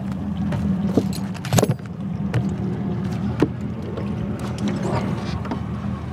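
Footsteps and knocks on a boat's carpeted deck and a storage hatch latch being worked and the lid lifted, a few sharp clicks and thumps, over a steady low engine hum.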